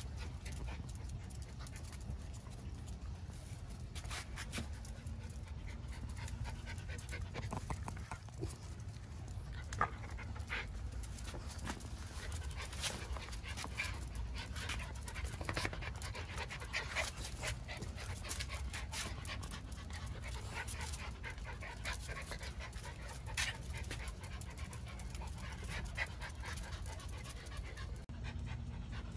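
Miniature schnauzers panting, with many short clicks scattered through the sound.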